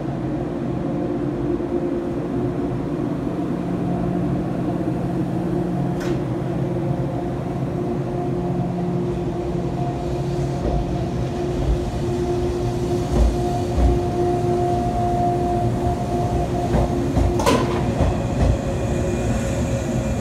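JR East 485-series electric train pulling slowly out of a station, its running equipment giving a steady hum. From about halfway, its wheels thud rhythmically over the rail joints, and there are two sharp metallic clanks, one about six seconds in and one near the end.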